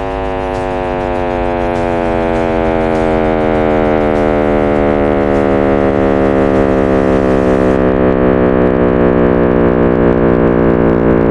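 Sonification of the Big Bang's leftover radiation, the cosmic microwave background, turned into a humming sound. A thick chord of many tones glides slowly downward in pitch and grows slightly louder.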